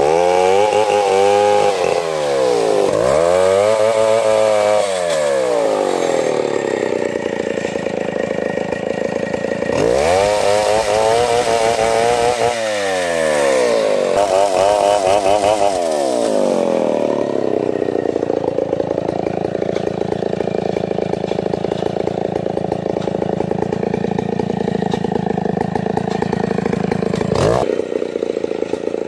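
Stihl 070 chainsaw, a large two-stroke, cutting through ulin ironwood, its engine pitch dropping and rising again several times in the first half, then running steady. A short sharp break near the end.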